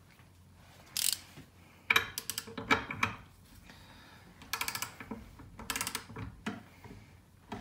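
Click-type torque wrench ratcheting in short strokes while a bolt is tightened towards 120 ft-lb. Several quick runs of pawl clicks, with a dense cluster about two seconds in and two rattling bursts near five and six seconds.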